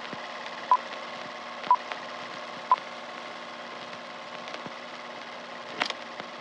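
Film-leader countdown beeps: three short, high beeps a second apart, then they stop, over a steady hiss with a few faint clicks.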